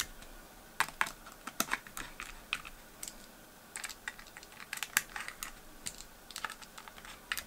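Light, irregular metallic clicks of a hex screwdriver engaging and turning the small screws of a GPU waterblock's backplate during cross-tightening, with a dozen or more sharp clicks at uneven intervals.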